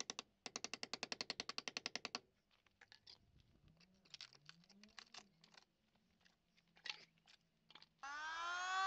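Quiet rapid clicking at about ten a second, then scattered faint clicks. Near the end an electric power tool's motor starts up with a whine that rises and then settles to a steady pitch.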